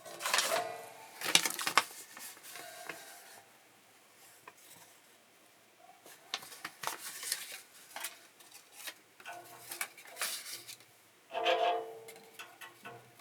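Irregular clatter and clicks of hard, metallic-sounding objects being handled, some knocks leaving a short ring; the loudest come about a second in and again near the end.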